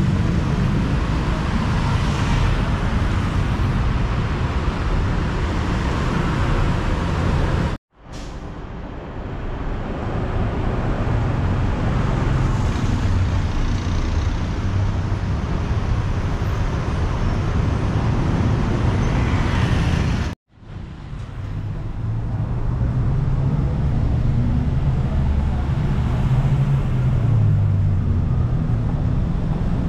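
Street traffic running steadily, with a low rumble of engines and tyres. The sound drops out suddenly twice, about eight and twenty seconds in, and fades back up each time.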